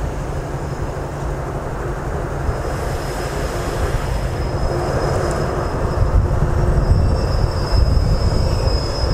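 Alsthom diesel-electric locomotive, re-engined with an MTU diesel, rumbling as it draws slowly into the station, growing louder as it comes closer. A thin high whine runs through the second half.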